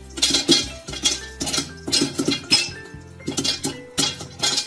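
Popcorn popping in a lidded kadai: kernels burst and the popped corn strikes the metal lid in quick, uneven clusters of clinks and knocks. The popping is still going, the sign that the corn is still frying.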